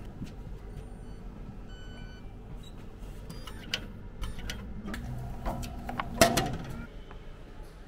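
Short electronic beeps, then a run of sharp clicks and knocks, the loudest about six seconds in, over a steady low rumble.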